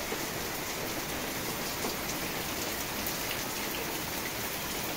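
Steady rain shower falling, an even hiss with no break.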